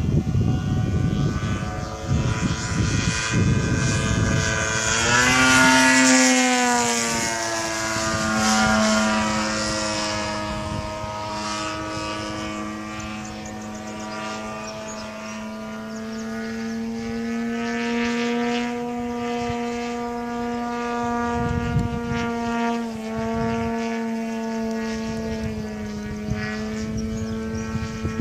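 Radio-controlled model airplane flying overhead, its motor and propeller giving a steady droning tone that drops in pitch as it passes about five seconds in, then holds level with a smaller dip about 23 seconds in. Low wind rumble on the microphone in the first few seconds.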